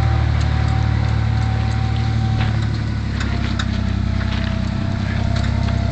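Universal U445 tractor's diesel engine running steadily under load as it pulls a trailer up a snowy track, its pitch shifting slightly about halfway, with scattered light clicks.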